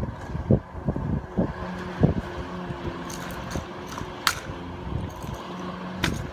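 Wind buffeting the microphone in uneven low thumps, over a steady low hum like a vehicle engine running. There are a few sharp clicks, one about four seconds in and another near the end.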